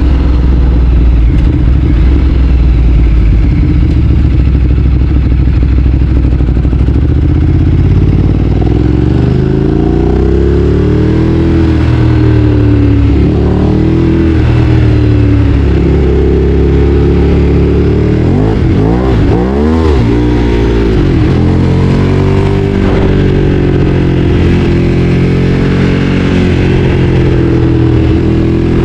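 Ducati Streetfighter 848's L-twin engine under way, running steadily at first, then rising and falling in pitch as the throttle is opened and closed through the gears. About two-thirds of the way through, it drops sharply and climbs straight back up.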